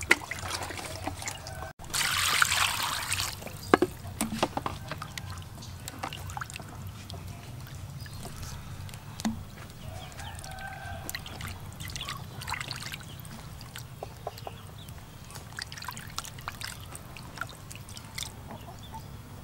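Water poured into a wooden tub of raw chicken pieces, a loud rush about two seconds in that lasts over a second, then hands washing and rubbing the chicken in the water with small splashes and sloshes.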